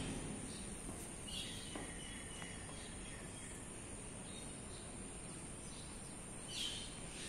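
Outdoor background of a steady high-pitched insect trill over a low hiss, with a few short bird chirps about a second in and again near the end.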